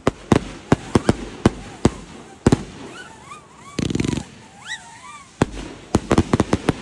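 Consumer fireworks going off: sharp bangs at irregular intervals, a dense crackling burst about four seconds in, and a quick run of bangs near the end, with short rising-and-falling whistles among them.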